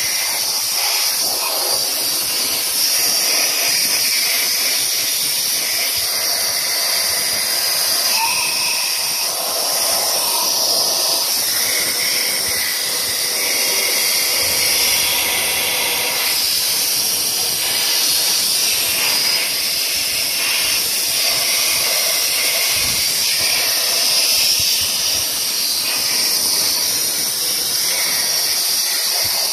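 Compressed-air blow gun hissing steadily as it blasts loosened baked-on oil debris out of an open cylinder head around the camshafts.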